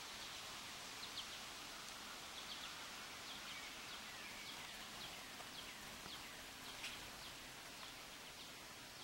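Faint steady outdoor hiss with many short, high clicks and a few brief falling chirps scattered through it.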